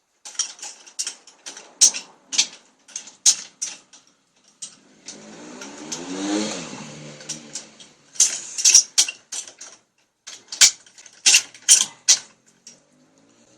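Hand-tool work on the engine block while the main bearing caps are bolted on: a run of sharp, irregular metallic clicks and clinks. About five seconds in there is a whir that rises and falls, lasting about two and a half seconds.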